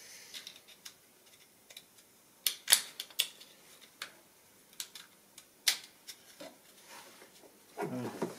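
Light ticks and sharp clicks of an electrical connector and its terminal block being handled and refitted on an engine wiring harness. The clicks are scattered, with the sharpest few between about two and a half and six seconds in.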